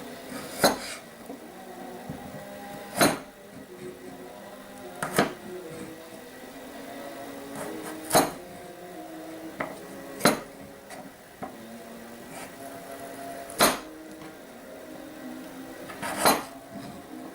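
About seven sharp kitchen knocks, spaced two to three seconds apart, over soft background music with held notes.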